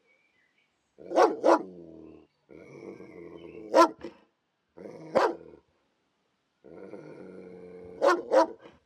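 Dog barking: about six short, sharp barks, two quick pairs among them, over a steady low drone. The sound comes in short stretches with silent gaps between them.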